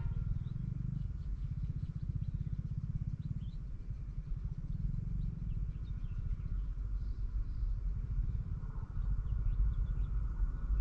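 Twin WDM 3A ALCo diesel locomotives approaching, a low pulsing engine rumble that grows louder near the end. Birds chirp now and then above it.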